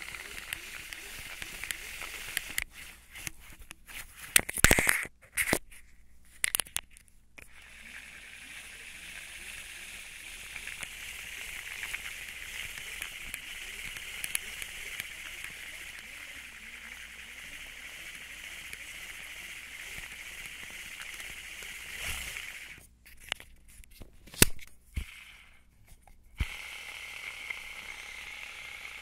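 Shimano Tranx 500 baitcasting reel cranked by hand, a steady soft whir of its gears turning on a newly fitted DuPont Vespel bushing. Sharp clicks and knocks from handling the reel come in two clusters, a few seconds in and again near the end.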